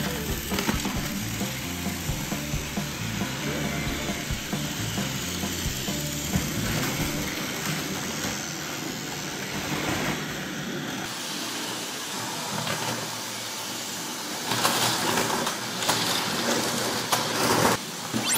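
Battery-powered Plarail toy trains running on plastic track, a steady gritty rattle of motor and wheels. The clatter grows louder over the last few seconds as a train runs close by over a bridge piece.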